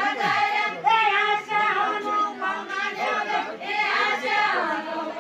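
A group of voices singing a Deuda folk song together in a slow, drawn-out melody.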